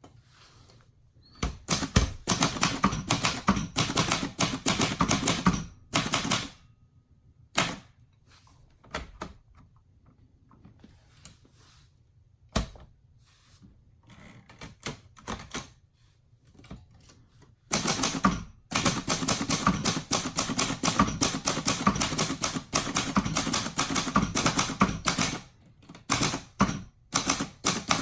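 Keys of a 1962 Royal Signet manual portable typewriter striking in two long, fast runs of typing. Scattered single strokes and short pauses fall between the runs.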